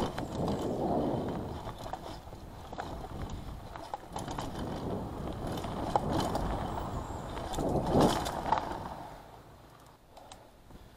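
Mountain bike riding down a dirt trail, heard from a camera mounted on the bike: tyre rumble over dirt and roots with the bike rattling and clicking, a heavy knock about eight seconds in, then quieter towards the end.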